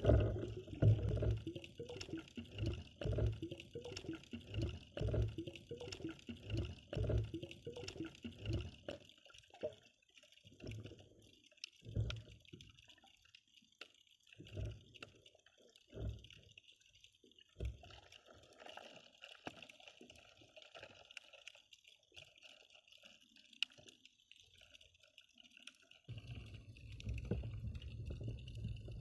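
Muffled water sounds heard through a submerged camera: a run of dull, low thumps and sloshes, about one every second, for the first several seconds. These thin out to occasional single thumps. Near the end comes a steady low rumble of water movement.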